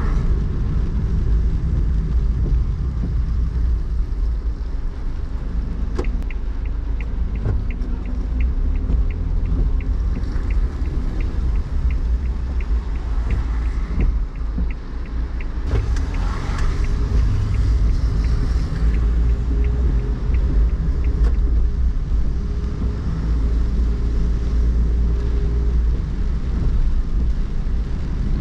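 Low, steady road rumble of a car heard from inside the cabin while driving on wet streets. From about six seconds in until about nineteen seconds in, a turn-signal indicator ticks evenly, two to three times a second.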